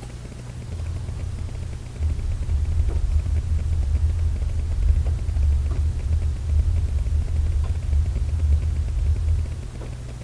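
Deep, low rumble of unexplained origin that grows louder about two seconds in, holds for several seconds and eases off near the end; it is heard as seismic rumbling, almost like thunder, and this one is a big one.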